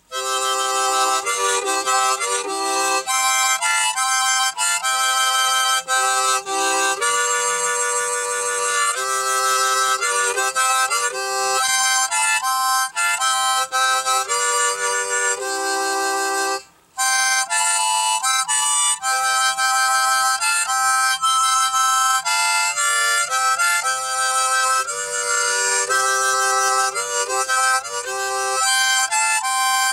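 A harmonica played solo: a tune of chords and single notes, with one short break about two-thirds of the way through.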